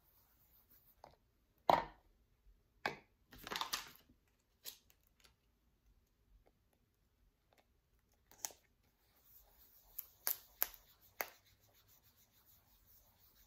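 Hands applying round paper labels to skincare jar lids: a short ragged tearing sound as a label is peeled off its backing sheet, and scattered sharp clicks and taps of fingers and jars. The loudest tap comes about two seconds in, and a quick run of clicks comes about ten seconds in.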